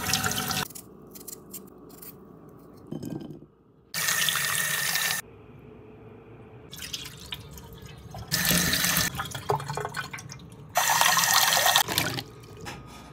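Water from a kitchen tap running and splashing in several short spells of about a second each, with light clicks and knocks between them.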